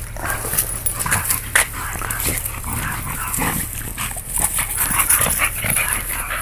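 Two dogs, a young pit bull among them, play-fighting, with yips and whimpers amid an irregular run of short scuffling knocks.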